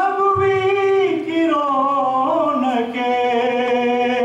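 A man singing an Urdu naat, a devotional poem in praise of the Prophet Muhammad, in a single voice: long held notes joined by sliding melodic turns.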